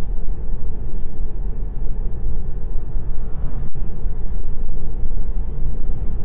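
Tesla Model 3 driving along a road, heard from inside the cabin: a steady low rumble of tyre and road noise, with no engine sound from the electric drive.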